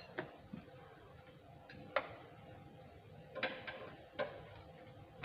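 A handful of short, sharp metallic clicks and knocks from hand work on mechanical parts, the sharpest about two seconds in and a quick cluster near the end, over a faint steady hum.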